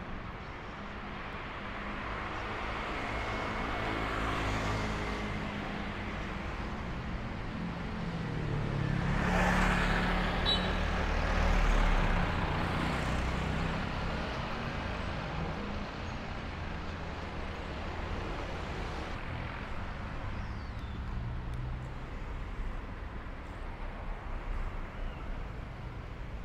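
Street traffic: motor vehicle engines running, with a vehicle passing that is loudest about nine to twelve seconds in.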